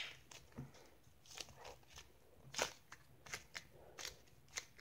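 Purple butter slime being squeezed and pressed between the hands, giving faint, irregular clicks and sticky pops, the loudest at the very start and again about two and a half seconds in.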